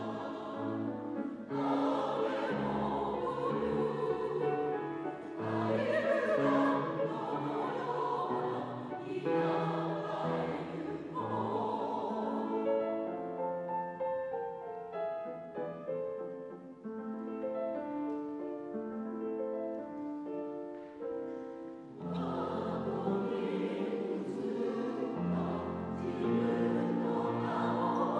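Mixed choir singing a Japanese song with grand piano accompaniment. About twelve seconds in, the voices drop out for a piano-only passage of some ten seconds, and the choir comes back in near the end.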